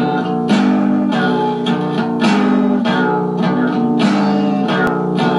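Guitar music: chords strummed in a steady rhythm, a new strum about every half second to second.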